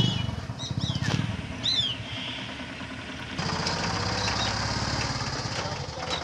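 A small engine puttering with a steady, rapid pulse, with a few short bird chirps in the first two seconds. About halfway a steady high hiss sets in.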